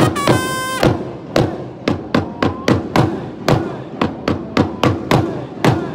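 A trumpet phrase ends about a second in, then a drum is struck with a mallet in a steady beat of about four strikes a second.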